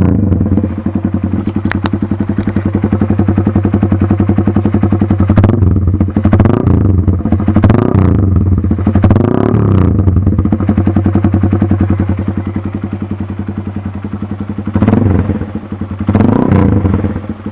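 Keeway RKS 150 motorcycle engine running through an SC Project open exhaust pipe with no silencer, idling with a loud pulsing beat and revved up and down several times.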